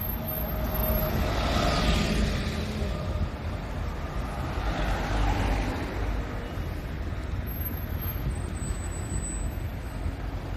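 Road traffic passing close by. A double-decker bus's engine and tyres go past over the first few seconds, then another vehicle swells and fades, over a steady low rumble.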